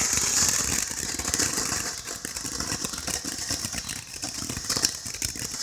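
Rapid dense crackling and popping from a firework, fading over the first couple of seconds and then going on more quietly.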